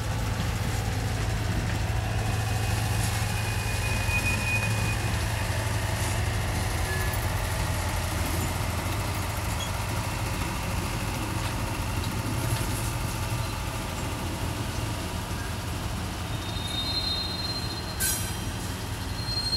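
Freight train rolling on the rails: a steady low rumble of wheels, with brief high-pitched wheel squeals about four seconds in and again near the end, and one sharp click just before the last squeal.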